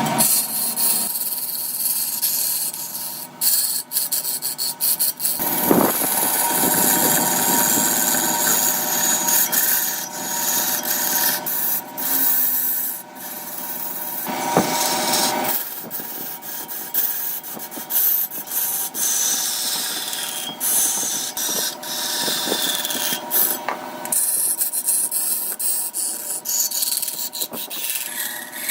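A tool cutting and scraping redwood in a large woodturning job: a steady rasping hiss with a faint steady hum beneath, changing abruptly several times.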